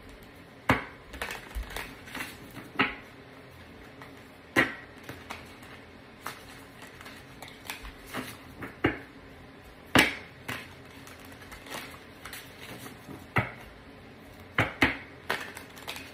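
A tarot deck shuffled by hand, the cards giving off irregular sharp snaps and slaps, the loudest about ten seconds in and a quick cluster near the end.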